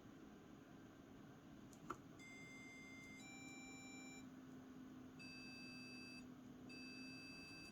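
Digital alarm clock's alarm going off, faint: a click, then two one-second electronic tones stepping up in pitch, then one-second beeps at a higher pitch repeating with short gaps. A steady low hum runs underneath.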